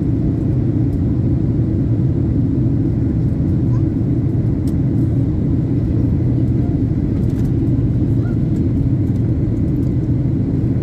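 Airliner cabin noise: a steady, low rumble of engines and airflow heard from inside the passenger cabin, even in level throughout.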